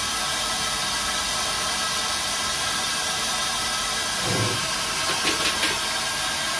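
Niigata SPN 40 CNC horizontal machining centre running, its spindle carrying a twist drill at the workpiece: a steady hiss with a few steady whining tones over it. A low thump comes about four seconds in, and a few short clicks follow a second later.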